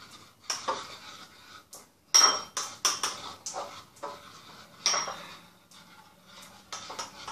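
Spoons stirring and scraping in bowls of sticky melted gummy bears, with irregular clinks against the bowl sides. The loudest clink comes a little after two seconds in.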